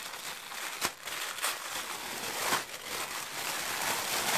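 Tissue paper rustling and crinkling as hands unwrap a package, with several sharper crackles, the sharpest about a second in.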